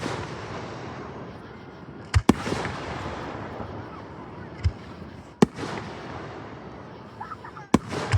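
Aerial fireworks shells bursting: about five sharp bangs in eight seconds, two of them close together a little over two seconds in, plus a duller low thump midway. Each bang trails off in a long rumble echoing off the surrounding hills.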